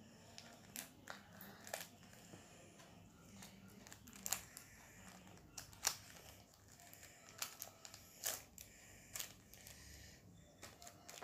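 Faint, irregular clicks and crinkles of small scissors cutting into a packet and the packet being handled.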